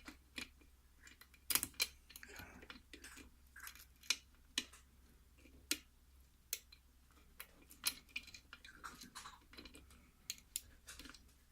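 Irregular small sharp clicks and taps of a hook pick working the pin stack of a six-pin KIK lock cylinder, as pins are set and reset.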